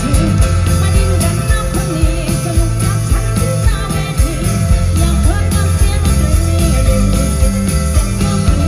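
Live rock band playing loud through a PA system, with drums, bass guitar and acoustic guitar, heard from within the crowd.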